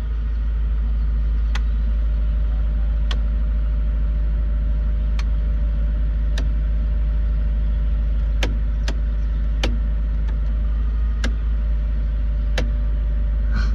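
A car engine idling steadily with a low rumble, with sharp clicks about every one to two seconds over it.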